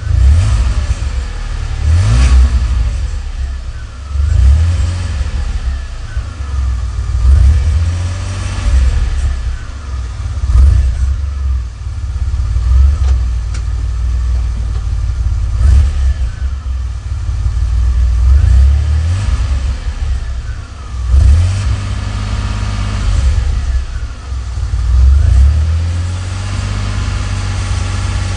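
DeLorean DMC-12's PRV V6 engine idling and revved in short throttle blips about every two to three seconds. Under the revs there is a rattle from the engine bay or underneath the car, which someone suggested may be a loose muffler bracket.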